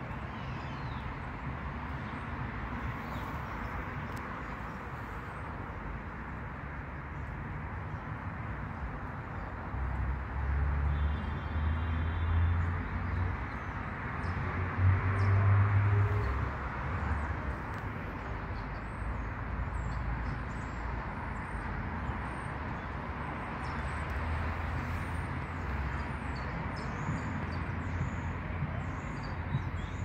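Steady outdoor hum of distant traffic, with a louder low rumble between about ten and seventeen seconds in. Faint high-pitched bird chirps repeat through the second half.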